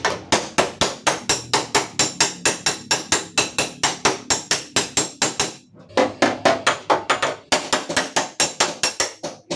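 Hammer tapping out a dent in a Toyota Calya's steel door panel: rapid, even metallic strikes about four a second, broken by two brief pauses.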